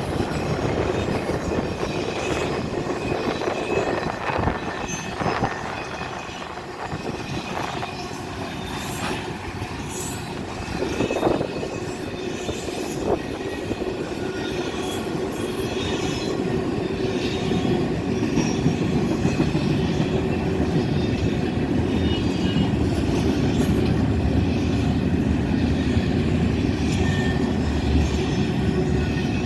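Freight train cars, double-stack container and piggyback flatcars, rolling past in a steady rumble with wheel clatter. A thin, steady wheel squeal runs over it, and a few sharper knocks come around four to thirteen seconds in.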